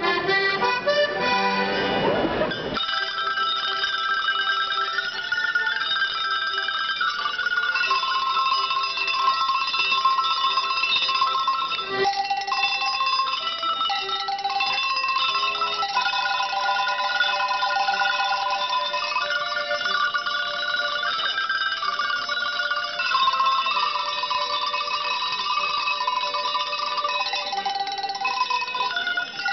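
A set of tuned cowbells rung by hand by several players in turn, picking out a melody note by note with clear ringing tones at several pitches. For about the first three seconds a band with accordion plays along, then stops and the bells carry on alone.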